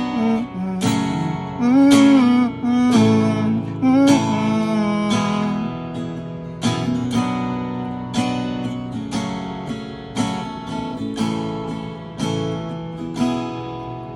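Acoustic guitar strummed chords closing out a song, one stroke roughly every second in the second half, each left to ring, fading away at the end.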